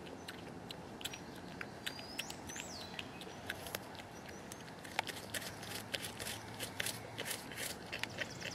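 A porcupine chewing chunks of fruit and vegetables: an irregular run of crisp crunches and clicks that grows busier after about five seconds. A bird gives a short rising chirp about two seconds in.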